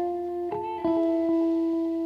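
Background music: guitar playing plucked notes that ring on, with a new note struck about half a second in and another just under a second in.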